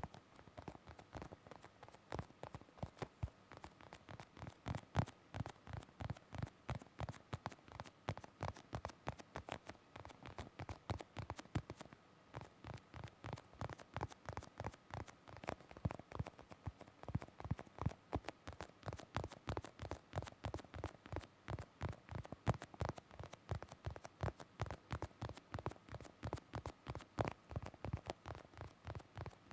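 ASMR tapping: quick, irregular light taps, several a second, kept up without a break.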